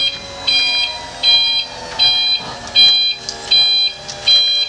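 Electronic warning beeper sounding in a steady repeating pattern, about four beeps every three seconds, with a fainter hum sliding slowly down in pitch beneath it.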